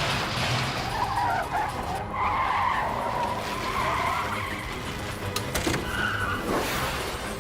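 Cartoon sound effect of vehicle tyres screeching in a skid, a long wavering screech starting about a second in and a shorter one near the end, over background music.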